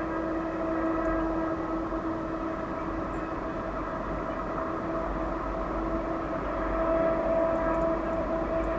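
Captrain 5003 freight locomotive approaching: a steady running drone with a high, even whine held throughout, growing slightly louder about seven seconds in.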